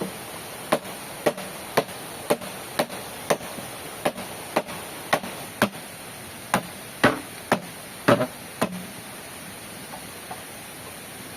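A tool striking wood in a run of about fifteen sharp chops or knocks, roughly two a second, stopping about nine seconds in.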